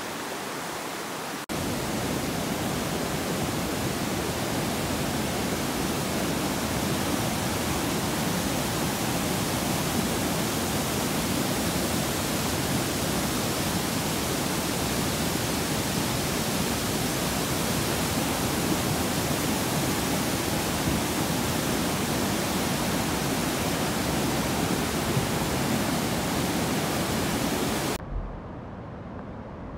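Floodwater rushing in a swollen creek, a steady loud noise. Near the end it cuts to a quieter, duller rush of water.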